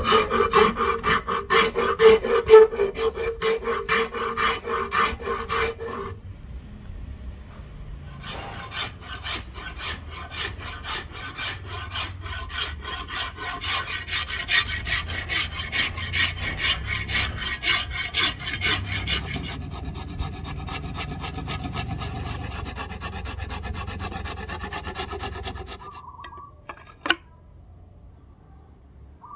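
Steel hand file rasping along a rosewood axe handle in quick repeated strokes, with a ringing tone under the strokes for the first six seconds. After a short lull the filing goes on more lightly, then stops, and a single sharp click comes near the end.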